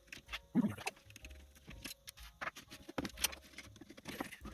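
Light clicks, taps and scrapes of a screwdriver working the screws of a small power supply's metal housing, then the plastic cooling fan being worked out of it. A short low vocal sound about half a second in.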